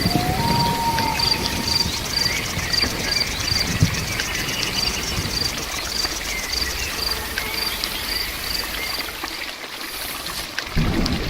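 Steady heavy rain with an insect chirping in a regular train, about three chirps a second. Near the end a heavier pouring sound comes in.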